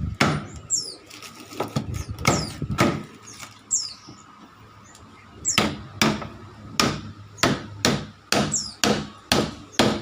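Hammer blows on a nailed wooden packing case being knocked open: a series of sharp knocks in irregular clusters, with short high squeaks that fall in pitch between them.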